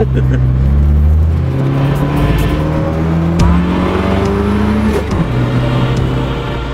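Turbocharged air-cooled VW flat-four boxer engine in a Volkswagen TL accelerating hard, heard from inside the cabin. The engine pitch climbs with the revs, drops sharply at a gear change about five seconds in, then starts climbing again.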